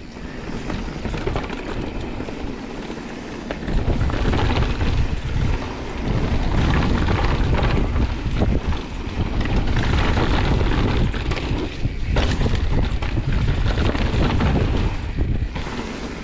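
Wind buffeting the camera microphone on a fast mountain-bike descent, mixed with knobby tyres rolling over a dirt trail and the bike's rattle. The rumble grows louder about four seconds in, dips briefly twice and eases near the end.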